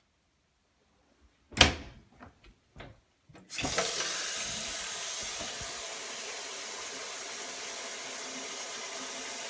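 A sharp knock and a few lighter knocks, then a faucet is turned on and water runs steadily into a sink, as the plumbing is tested for leaks.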